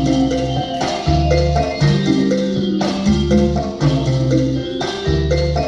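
Cha-cha-cha dance music playing, with a steady beat, a bright melody and a strong bass line.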